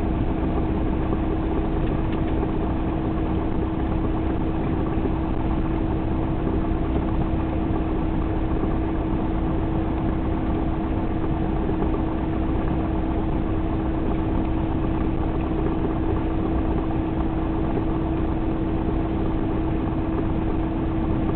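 Cessna 172 Skyhawk floatplane's piston engine and propeller running at low power while taxiing on the water after landing, heard from inside the cabin: a steady drone with one constant hum through it.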